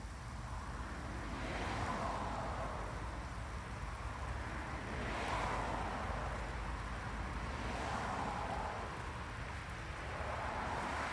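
Outdoor background noise: a broad rushing sound that swells and fades four times, about every three seconds, over a steady low rumble.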